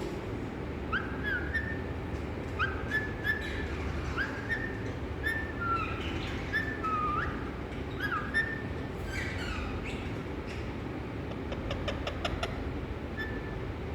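A caged parrot whistling the same short call over and over, each a quick upward sweep into a held note, for most of the first nine seconds. A quick run of sharp clicks follows about twelve seconds in, over a steady low hum.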